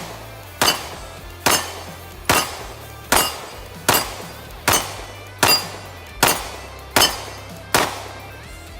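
A CZ P-10 C pistol fired ten times at a steady pace, a shot a little under every second, each shot ringing out briefly; the firing stops near the end.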